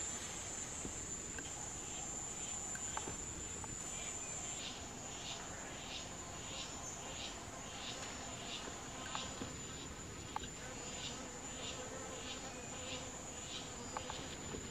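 Forest insects: a continuous high-pitched drone. About a third of the way in, a second insect joins with evenly repeating pulsed chirps, roughly three every two seconds.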